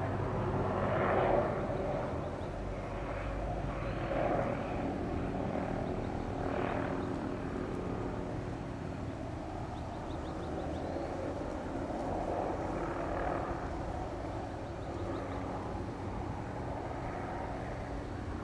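MD500E police helicopter flying by, its rotors and turbine engine sounding steadily, rising and falling a little in loudness.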